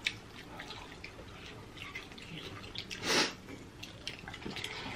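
Close-up wet eating sounds of people chewing and sucking saucy chicken wings off the bone: small smacking and clicking mouth noises, with one louder hiss of air through the lips a bit over three seconds in.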